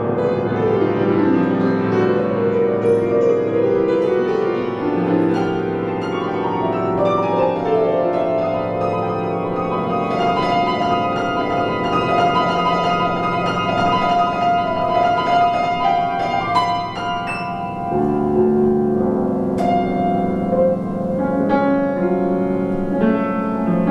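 Grand piano played in free improvisation: dense, overlapping chords and runs. After a brief lull about three-quarters through, new low chords come in.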